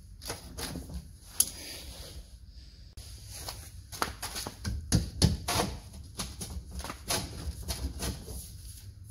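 Steel tow bar being pulled and wriggled out of a VE Commodore wagon's chassis rails by hand: a string of irregular metal knocks and scrapes, busiest about halfway through.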